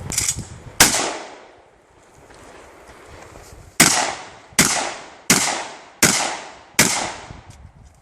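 Shotgun shots: a fainter crack at the very start, one loud shot just under a second in, a pause of about three seconds, then five shots in quick succession about three-quarters of a second apart. Each shot trails off in a fading echo.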